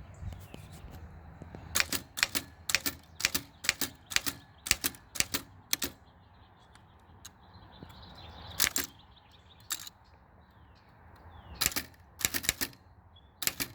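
Elliott Fisher flatbed book typewriter typing: a quick run of about ten key strikes, two or three a second, then a few single strikes and a short cluster of them. The type strikes through four layers of paper at once.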